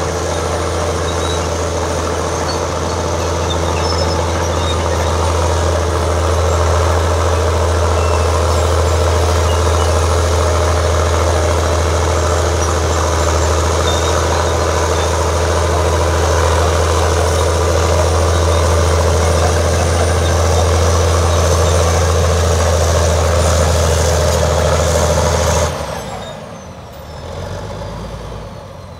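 Allis-Chalmers HD21A crawler dozer's diesel engine running hard and steady while the dozer pushes dirt. About four seconds from the end the engine note drops away sharply, with a faint whine falling in pitch.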